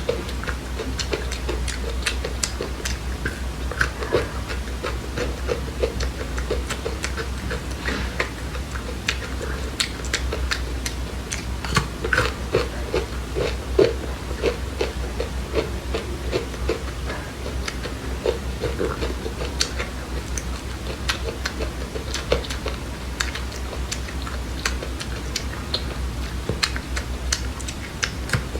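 Close-up chewing and crunching of dry seeds: rapid, irregular small crackles and clicks, over a steady low hum.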